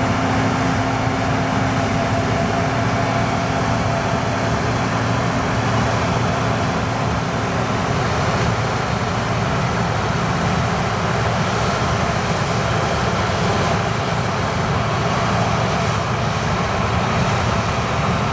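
Gleaner R65 combine harvester running steadily in the field, a constant mechanical drone of engine and machinery. A steady low tone in it fades out about eight seconds in.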